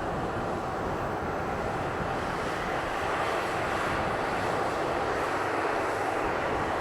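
Jet aircraft engine noise: a steady rushing sound that grows slightly louder about three seconds in.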